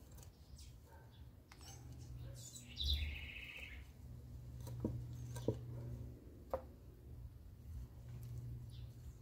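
Fingers firming potting soil around a succulent in a terracotta pot: faint rustling and a few light taps. A short bird chirp comes about three seconds in.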